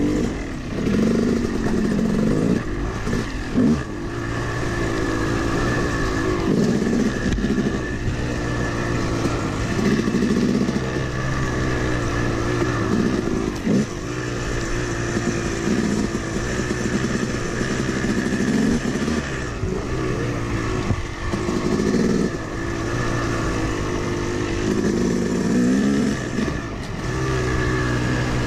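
Yamaha 250 two-stroke dirt bike engine being ridden hard: the revs climb and drop again and again, about every couple of seconds, as the throttle is worked. A couple of sharp knocks are heard along the way.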